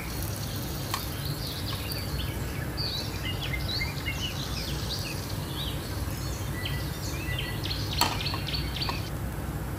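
Small birds chirping in many short, quick calls over a steady low rumble. A sharp click about eight seconds in is the loudest moment.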